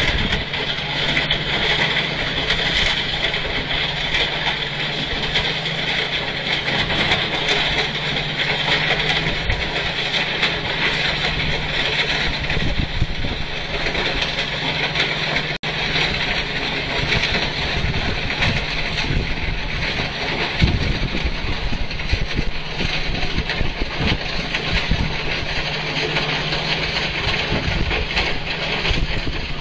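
Railway track maintenance machines working the ballast: their diesel engines run steadily as a low drone, with a continuous hiss over it.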